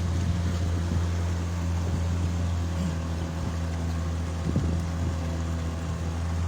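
Boat engine running steadily with an even low drone.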